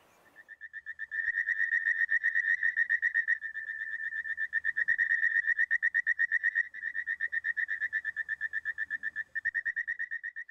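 Chilean four-eyed frog (Pleurodema thaul) calling: a long, fast pulsed trill of about nine pulses a second at one high pitch. It builds up over the first second and is broken by a few short pauses.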